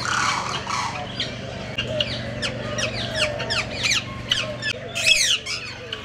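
Birds calling: a fast run of sharp, high calls, each sliding steeply down in pitch, a few per second, with a louder cluster of calls about five seconds in.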